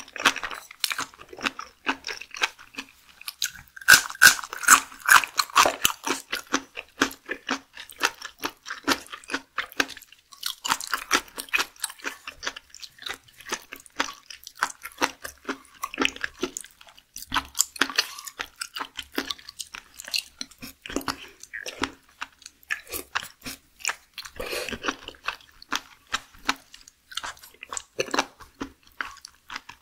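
A person chewing and biting raw seafood close to the microphone, mukbang ASMR style: a steady run of quick, moist clicking chews, loudest around four to six seconds in.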